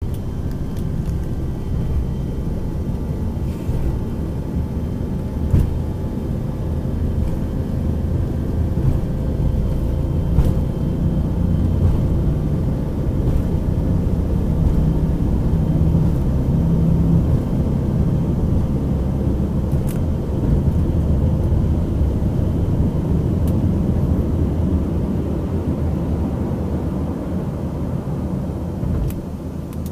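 Airplane cabin noise in flight: a steady low rumble of engines and airflow heard from inside the cabin, with faint steady tones and a few faint clicks.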